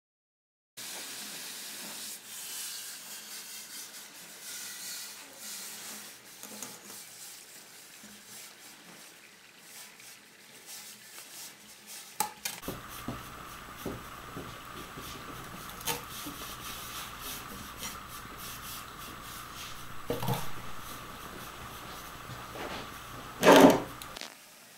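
Liquid nitrogen boiling off in stainless steel bowls: a steady hiss, with a few short knocks and a loud bump near the end. A faint steady high tone comes in about halfway.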